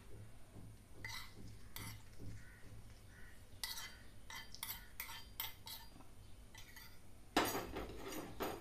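A steel spoon clinking and scraping against a small iron kadhai as the ghee tempering is spooned out onto dal khichdi: a series of separate clinks, then a longer, louder clatter near the end.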